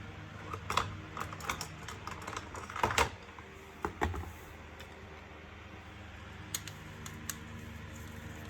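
Irregular light clicks and taps of hands handling a vacuum cleaner's plastic casing and parts, thickest in the first half with a few more near the end, over a steady low hum.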